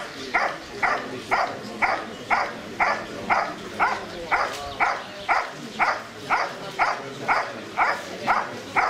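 German Shepherd barking in a steady, even rhythm of about two barks a second at a helper who stands still with a bite sleeve. This is the guarding hold-and-bark of IGP protection work.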